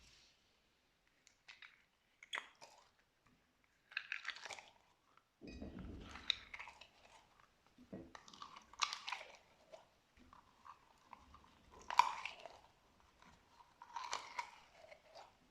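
Slime being pressed and squished by hand, giving short sticky crackling and popping bursts about every one to two seconds. A dull low thump comes about five and a half seconds in.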